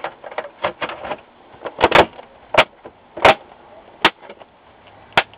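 Plastic back cover of an LCD monitor being pressed and snapped into place on the housing: a series of sharp plastic clicks, about six loud ones spread through the middle and end, with lighter clicks and handling in the first second.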